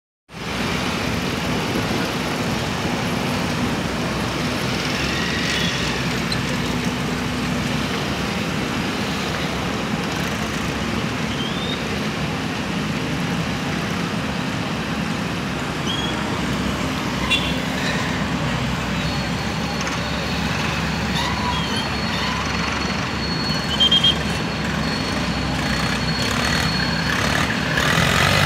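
Komatsu tracked hydraulic excavator's diesel engine running steadily under load while it moves a concrete culvert pipe, with two brief knocks in the second half.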